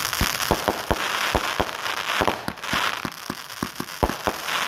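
High Falutin consumer firework cake firing in rapid succession: sharp bangs about four to five a second over constant crackling.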